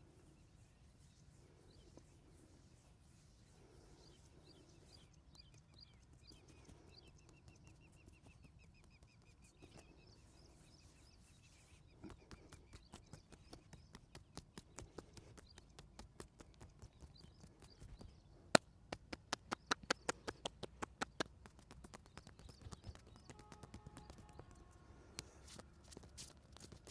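Massage hand strikes on the body: a run of quick, sharp taps and slaps that starts about halfway in, speeds to several a second just after one loud smack, then thins out. Birds chirp faintly in the first half.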